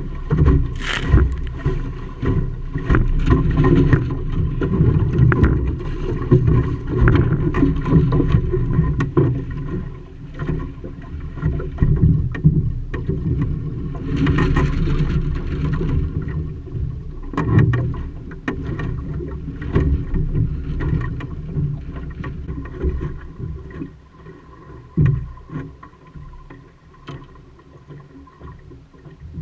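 Water splashing and slapping against the hull of a small wooden Optimist sailing dinghy under way, heard from on board, with a low rumble of wind on the microphone. It gets quieter near the end.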